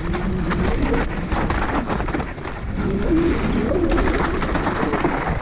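Mountain bike riding fast down a dirt forest singletrack: a steady rush of tyre and wind noise with many quick knocks and rattles from the bike over the rough trail, and the rider breathing hard with short voiced gasps.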